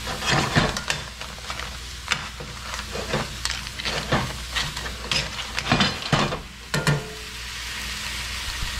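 Crab in butter sauce sizzling in a stainless steel pan, with metal tongs clinking and scraping against the pan as the pieces are tossed. The knocks are irregular for about seven seconds, then only the steady sizzle is left.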